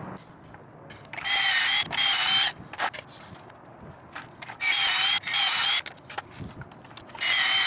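Cordless drill with a stepped pocket-hole bit boring pocket holes through half-inch plywood in a Kreg jig. It runs in short whining bursts of about half a second, two bursts close together, three times, with light clicks of the clamp and boards being handled in between.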